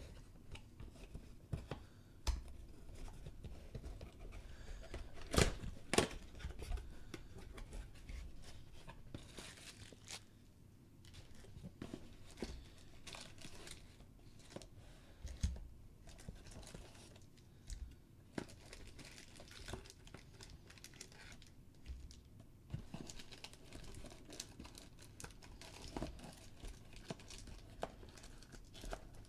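Cardboard hobby box being torn open, with two sharp cracks about five to six seconds in, then foil-wrapped trading card packs crinkling and clicking as they are pulled out of the box and set down.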